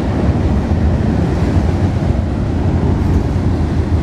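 Train passing close by: a loud, steady low rumble.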